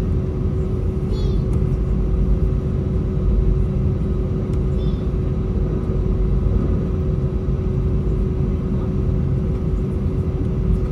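Airbus A320 with its engines running: a steady, loud rumble of engine and airflow noise with a constant hum tone through it, heard from inside the cabin.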